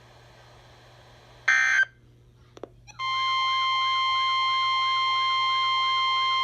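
A brief burst of digital data tones, then after a click a loud, steady Emergency Alert System attention tone starts about three seconds in, with a warbling tone beneath it. It marks the start of a new emergency alert.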